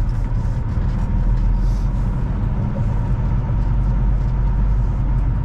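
Semi truck's diesel engine running steadily as the truck creeps forward at low speed, heard from inside the cab as an even, low-pitched drone with a faint steady whine above it.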